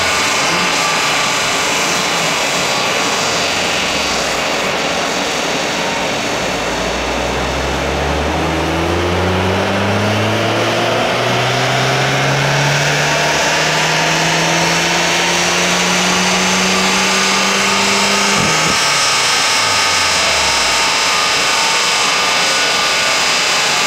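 Stage 1-tuned VW Polo GTI 2.0 TSI turbocharged four-cylinder with REMUS exhaust doing a full-throttle dyno pull. The revs die away over the first few seconds, then climb steadily from about seven seconds in to about eighteen seconds, when the throttle is closed abruptly and the revs fall. The dyno's cooling blowers are running the whole time.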